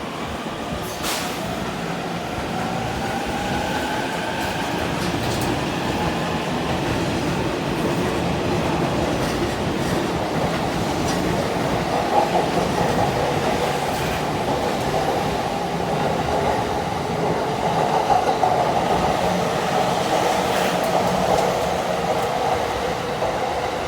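JR East E231 series electric commuter train with a Hitachi IGBT VVVF inverter, pulling away and picking up speed. The inverter and motor tones rise in pitch over the first several seconds, then give way to a growing rumble of wheels on rail. On set U541 the inverter's asynchronous-mode tone sits unusually low.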